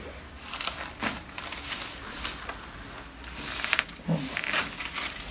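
Chiropractic adjustment: rustling as the patient is positioned, then a quick run of small cracking pops about three and a half seconds in, the joint cavitating as it is adjusted, followed by a short grunt.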